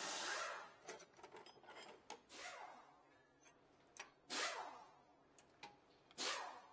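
Steel pry bar levering a stuck front brake caliper bracket off its mounting, metal scraping and knocking in four short strokes about two seconds apart, with small clicks between.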